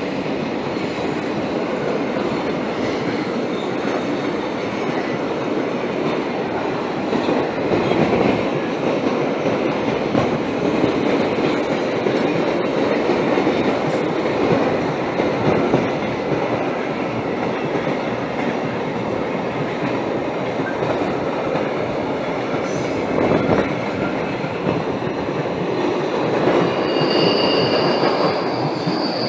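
Freight train of double-deck car-carrier wagons rolling past, a steady rumble and clatter of wheels on the rails; a thin high wheel squeal joins near the end.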